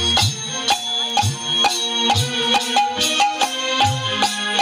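Instrumental background music with pitched melody notes over a steady percussive beat of about two strikes a second.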